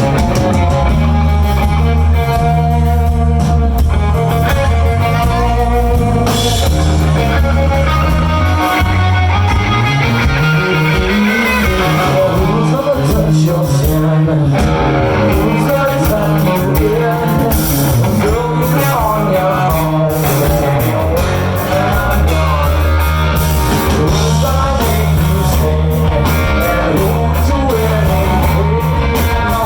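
Rock band playing live, with electric guitar to the fore over bass and drums.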